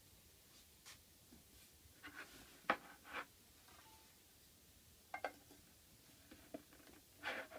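Faint, scattered scrapes and light knocks of hand work at a bench: tools and materials being handled and set down, with a sharper knock about three seconds in.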